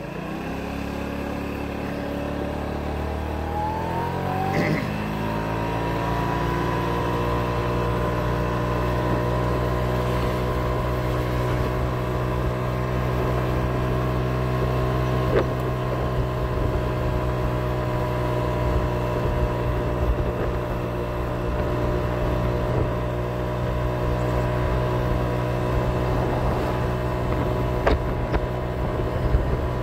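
Moped scooter's small engine pulling up to speed, its pitch rising over the first few seconds, then running at a steady pitch while cruising.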